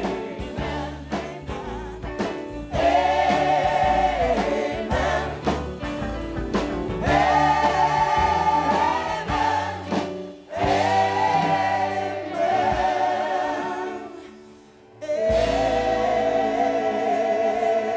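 Live gospel music: a choir and singers hold sustained chords over a band with drums and bass. The music dips briefly, then comes back in on a long held note with vibrato.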